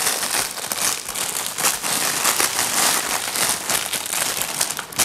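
Clear plastic wrapping crinkling and crackling as it is pulled off a small toy robot by hand, with many quick sharp crinkles.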